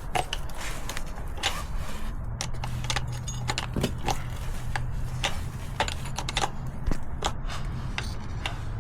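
Metal clicks and clinks of hand tools working the rear axle chain adjusters of a dirt bike, in irregular single knocks. A low steady hum comes in about two seconds in.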